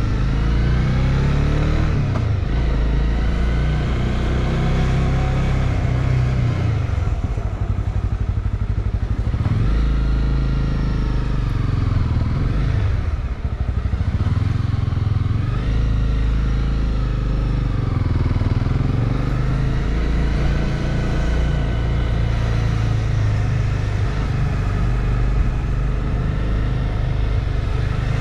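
Honda CB300R's single-cylinder engine running under way on the road, heard from the rider's seat. The engine pitch rises and falls several times with the throttle, easing off briefly about halfway through.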